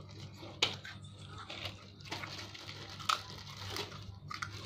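Crisp kerupuk crackers crunching as they are broken, bitten and chewed, with plastic bag rustling, in irregular sharp crackles over a steady low hum.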